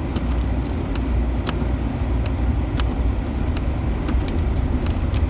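Inside the cab of a 2011 Ford Ranger pickup driving on snowy roads: a steady low engine and road rumble from all-terrain tyres, with scattered light clicks.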